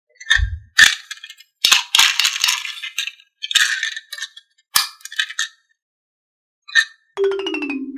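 Marbles clattering and rolling down a wooden HABA marble run slope: irregular clicks and rattling runs as they drop and bounce along the track. Near the end a pitched tone slides downward.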